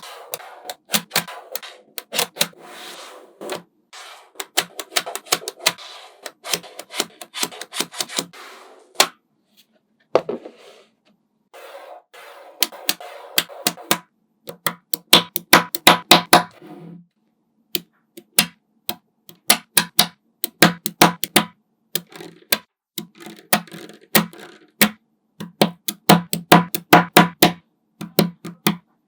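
Small magnetic balls clicking and snapping together as they are set into a build, in quick runs of sharp clicks with short pauses between.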